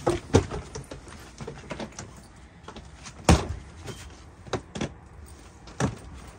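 Irregular knocks, bumps and rattles of hard-shell suitcases being handled and set down, with one sharp bang a little past three seconds in.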